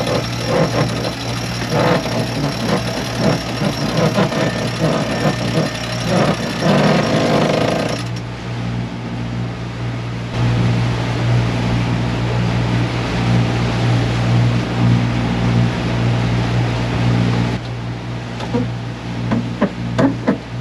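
Boat's diesel engines running steadily, a constant low hum, with a loud irregular rattling noise over roughly the first eight seconds that then stops.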